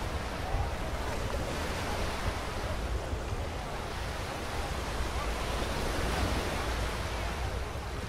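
Small waves breaking and washing up the sand in a steady surf wash, with wind buffeting the microphone as a low rumble.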